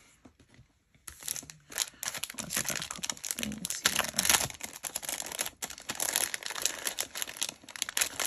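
Thin clear plastic packaging bag crinkling and crackling as it is handled, starting about a second in and running on in quick, dense crackles.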